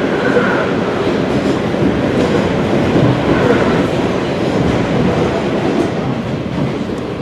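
ED4M electric multiple unit running at speed between stations: steady running noise of wheels on the track, with a light clatter from the rail joints.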